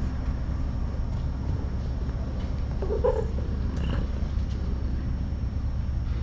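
Cat purring steadily close to the microphone, a low continuous rumble, with one short kitten call about three seconds in.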